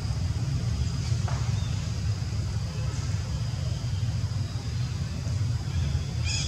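Steady low outdoor rumble, fluttering like wind on the microphone. A faint falling chirp comes about a second in, and a short high squeak near the end.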